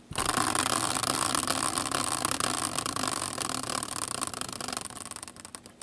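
Prize wheel spun by hand, its pointer flapper clicking rapidly against the pegs; the clicks slow and space out near the end as the wheel comes to rest.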